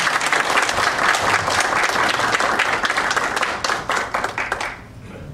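Congregation applauding, the clapping thinning out and stopping near the end.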